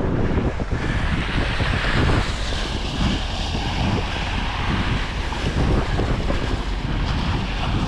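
Wind buffeting a chest-mounted action camera's microphone, with boots trudging through deep snow underneath.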